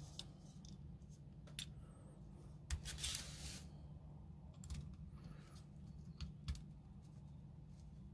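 Faint clicks and scrapes of small metal parts being handled and seated in an airsoft 1911 pistol's lower frame, with long-nose pliers and a screwdriver picked up from the bench. A short scraping rustle comes about three seconds in, over a faint low hum.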